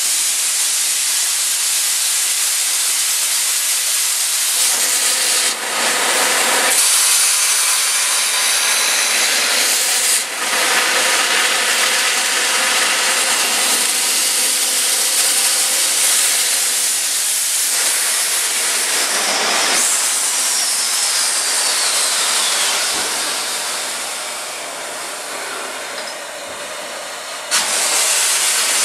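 East Broad Top narrow-gauge steam locomotive venting steam with a loud, steady hiss. The hiss dips briefly twice, eases off for a few seconds near the end, then surges back suddenly.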